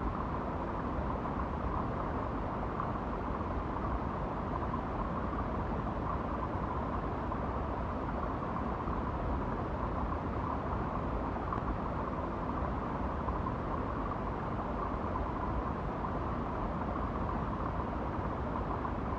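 A steady, unchanging noisy drone that cuts in suddenly at the start, heaviest in the low end, with a faint hissing band in the middle.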